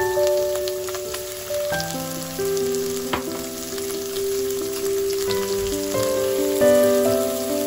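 Sliced pork sizzling in a nonstick frying pan, a steady hiss that starts suddenly, with background music playing over it.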